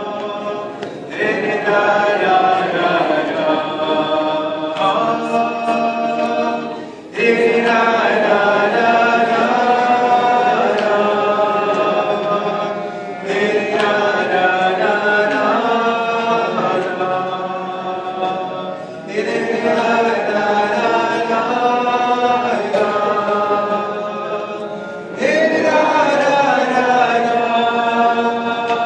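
A large group of people singing a niggun, a wordless Jewish melody, together. The tune repeats in phrases of about six seconds, each one starting strong after a brief dip.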